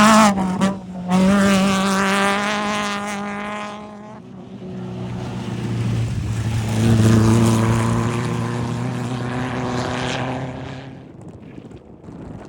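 Off-road race vehicles passing one after another. A high-revving engine runs with a short break about a second in and fades out around four seconds in. A second, lower-pitched engine then grows louder, peaks around seven seconds in, and fades away near the end.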